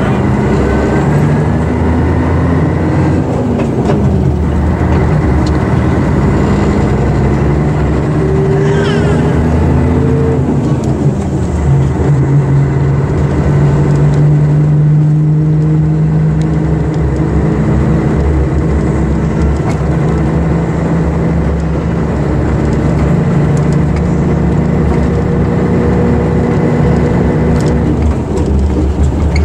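Scania diesel engine of an Ikarus EAG 395 coach under way. The engine note rises as it pulls, drops at gear changes about four and eleven seconds in, then holds steady at cruising speed.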